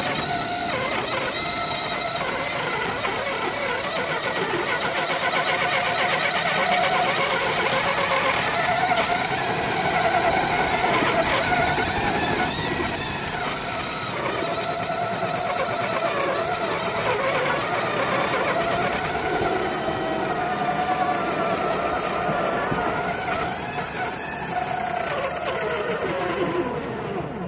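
The motor of a small rail vehicle running steadily as it pushes a homemade plow through wet snow. Its whine drifts up and down in pitch and falls away near the end.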